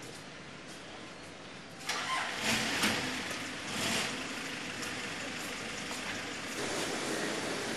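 Street traffic: a motor vehicle passes close by about two seconds in, with a steady traffic hum afterwards.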